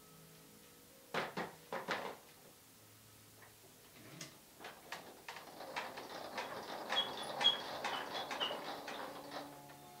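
A few sharp wooden knocks as a canvas is set onto a wooden studio easel. Then several seconds of rustling and clicking handling noise, with a few short high squeaks near the end as he settles onto a swivel office chair.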